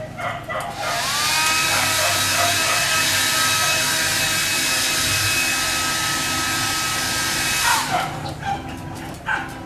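Handheld blow dryer switched on about a second in, whining up to speed, running steadily with a loud airy hiss and motor whine, then switched off near the end, its pitch falling as it winds down.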